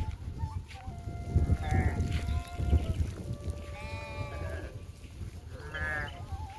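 Bleating of village livestock, sheep or goats: three separate calls about two seconds apart.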